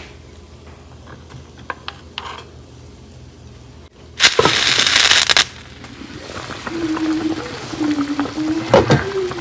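Light clicks, then a sudden loud hiss about four seconds in that lasts over a second and stops abruptly. After it, a pot of bulalo (beef bone broth) bubbles and crackles at a boil.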